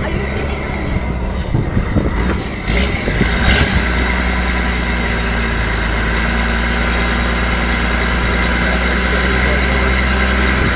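Army truck engine running at a steady, low speed while the truck drives slowly, an even hum. There are two short sharp knocks about three seconds in, after which the engine note settles and holds steady.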